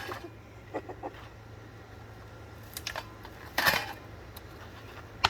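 A few light clicks and knocks, with a louder brief clatter about three and a half seconds in: pieces of a smashed ceiling fan being moved and handled.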